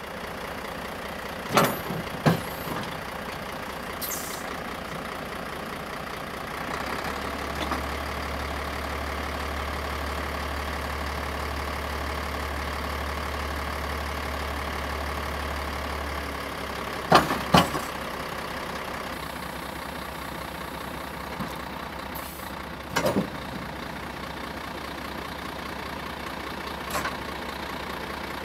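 Truck diesel engine idling steadily while the hydraulics work a Mählers 45B snow plough's blade. A deeper hum comes in about 7 seconds in and stops near 16 seconds. Short sharp knocks sound about 2 seconds in, twice near 17 seconds and once near 23 seconds.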